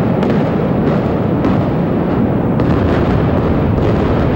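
Explosive demolition charges going off in rapid series as the St. Louis Arena is imploded: a loud, unbroken rumble with sharper cracks standing out about once a second.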